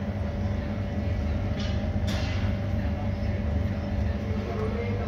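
A steady low machine hum holding an even pitch throughout, with a couple of faint brief sounds about two seconds in.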